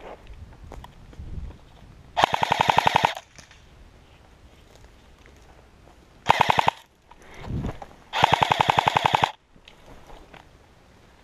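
Airsoft M4A1 rifle replica firing on full auto: a burst of about a second, a short half-second burst, then another burst of about a second, each a rapid, even run of shots.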